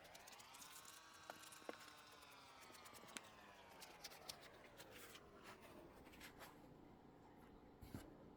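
Faint small clicks, taps and scratchy rubbing of a foam banana squishy toy being handled. Under them a faint pitched tone rises over about the first second, then slowly falls and fades out about six seconds in.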